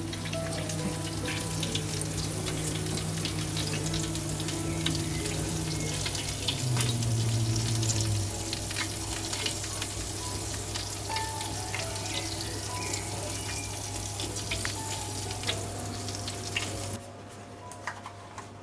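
Turkey wings sizzling and crackling in their fat in a baking dish in a hot oven, a dense patter of small pops. The sizzle cuts off suddenly near the end.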